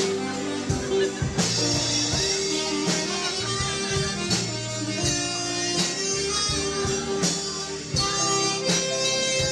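Hungarian mulatós dance band playing a dance tune, with held melody notes over scattered drum hits.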